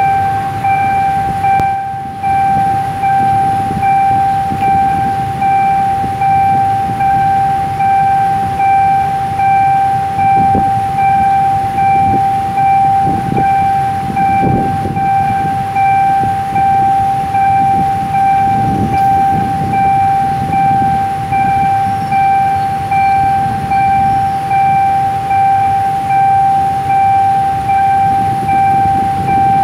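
Railway level-crossing warning alarm sounding: one steady high electronic tone that pulses about once a second, over a low rumble of idling motorcycles waiting at the lowered barrier.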